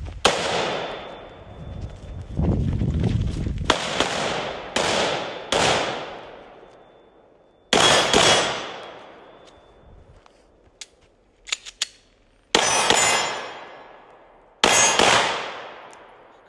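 Gunshots: about eight single shots at uneven spacing, each followed by a long echo fading through the forest. A thin ringing tone lingers after the first shot, and a few faint clicks fall between shots near the middle.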